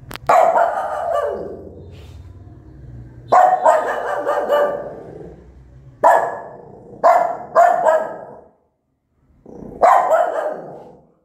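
A small white mother dog barking, about six loud barks spaced irregularly, each trailing off over about a second.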